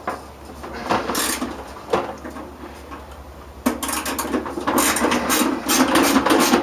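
Knocks and clicks of tools and metal parts of a microwave oven being dismantled, then, from about 3.7 s, a continuous mechanical rattling, like a ratchet or powered driver working on the parts.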